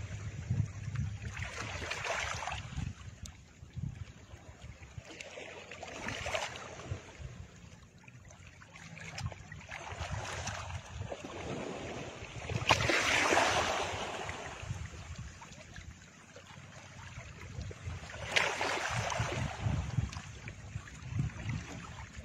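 Background soundtrack of soft, wave-like rushing swells, one every few seconds, the loudest about thirteen seconds in, over a faint low pulsing undertone.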